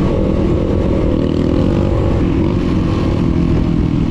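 Motorcycle engine running loudly and steadily, with no clear rise or fall in revs.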